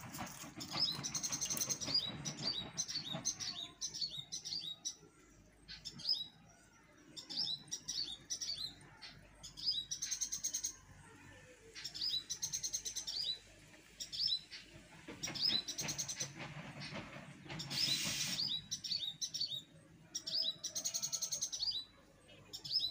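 Birds chirping and singing, with short high phrases of several quick notes repeated every couple of seconds. A brief rustle-like burst of noise comes about two-thirds of the way through.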